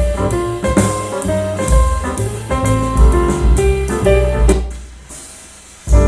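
Instrumental music played through a pair of Klipsch R-51M bookshelf speakers and picked up by a microphone. The piece fades down from about four and a half seconds in, and a new piece starts loudly near the end.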